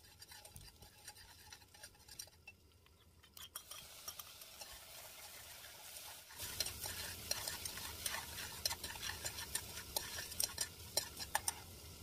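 Minced garlic sizzling faintly in oil in a stainless-steel pot. About six seconds in, small shrimp go in and the sizzle grows louder, with a metal spoon scraping and clicking against the pot as they are stir-fried.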